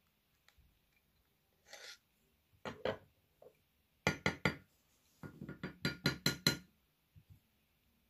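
A BLT V998 dual-screen mobile phone being handled, giving short, sharp plastic clicks and clacks in quick groups: a pair, then four in a row, then a longer run of about seven.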